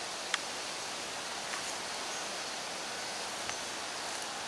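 Steady outdoor background hiss with no clear source, broken by a sharp click about a third of a second in and two faint ticks later.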